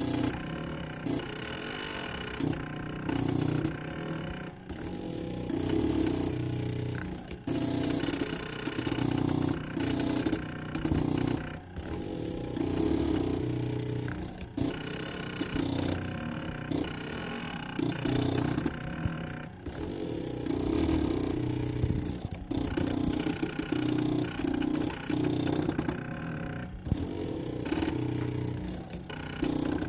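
Small stepper motors of a CD-ROM-drive CNC plotter buzzing with a pitched whine as they step the pencil across the paper. The runs last one to a few seconds and are broken by brief pauses as each move ends and the next begins.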